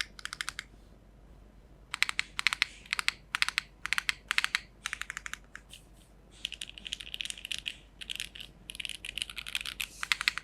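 Typing on a Geonworks F1-8X v2 mechanical keyboard with an aluminium plate, HMX Sonja HC switches on 50 g ultra-long springs, and GMK Trackday keycaps. The keystrokes come in quick runs broken by short pauses, with a pause of about a second near the start.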